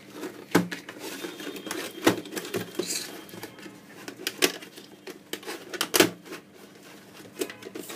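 A cardboard box and its white inner packaging tray being handled and pulled open: a run of small clicks and rustles with a few sharper knocks, the loudest about two and six seconds in.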